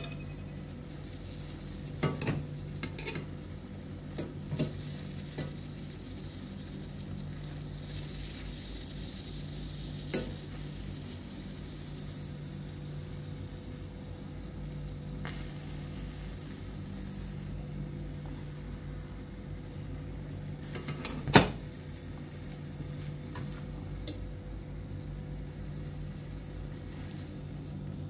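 Eggplants charring directly over a gas burner, their skins sizzling over a steady hiss and low hum. A few sharp clicks of metal tongs against the stove grate as the eggplants are turned, the loudest about 21 seconds in.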